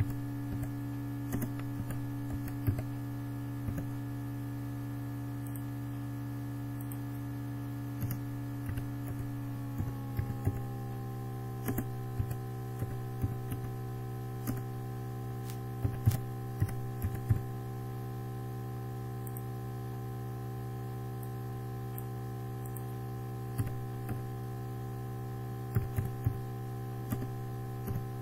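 Computer keyboard typing in short bursts of key clicks, with a few mouse clicks, over a steady electrical hum. About ten seconds in, some of the hum's tones drop slightly in pitch.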